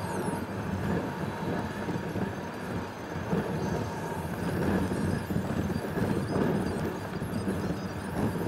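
Car driving noise heard from inside the cabin: engine and tyre rumble running steadily, swelling and easing a little as the car drives along.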